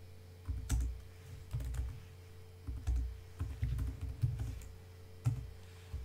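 Typing on a computer keyboard: short runs of keystrokes with pauses between them, and a lone keystroke about five seconds in.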